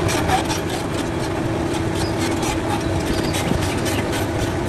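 A small motor runs with a steady hum under a continuous hiss of spray, as mud is washed off a toy.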